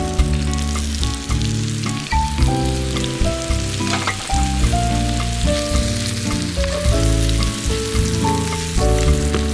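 Wild thistle stems sizzling as they are stir-fried in chicken fat on a hot griddle pan, heard over background music of held notes that change step by step.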